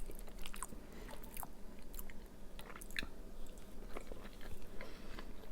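A person chewing a mouthful of food close to the microphone, with irregular wet mouth clicks and smacks.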